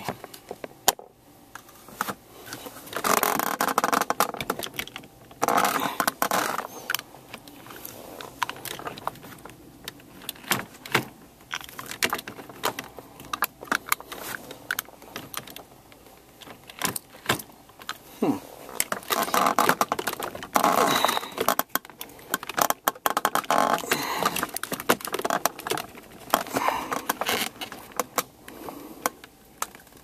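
Plastic gear knob of a 2004 Volvo XC90 automatic shifter being wrenched and tugged upward by hand, giving irregular clicks and rattles with a metallic jangling, in louder bouts a few seconds in and again about two-thirds of the way through.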